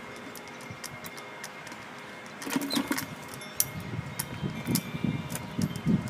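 Squirrel scrabbling inside a clear plastic bird feeder: scattered light clicks and taps of claws and seed on the plastic, with heavier scuffling about two and a half seconds in and again through the last two seconds.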